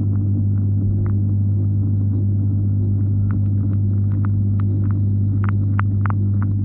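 Steady low hum of aquarium equipment carried through the water to a camera submerged in the tank, with scattered short clicks that come more often in the second half.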